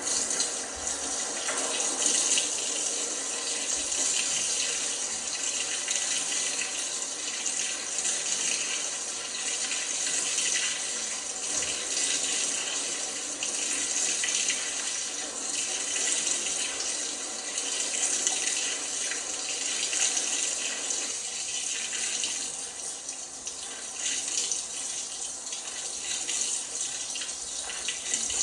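LG washing machine taking in water: a steady rush of water running into the machine, easing off briefly about 22 seconds in.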